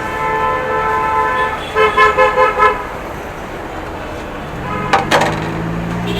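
Vehicle horn in street traffic: one held blast, then a rapid run of about five short toots around two seconds in. Later a low engine hum rises, with a sharp knock about five seconds in.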